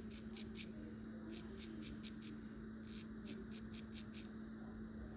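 Electric hair clippers running with a steady hum while shaving a head, with irregular crisp crackles as the blades cut through hair.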